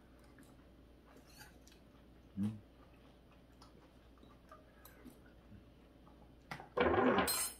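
Quiet eating at a table: a spoon clicking lightly against a bowl and chewing. A short, loud burst of sound near the end.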